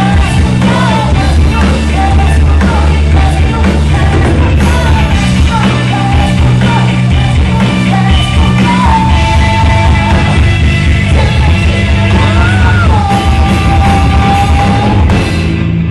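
Live rock band with electric guitar and a singer yelling and singing into a microphone. There are long held notes in the second half.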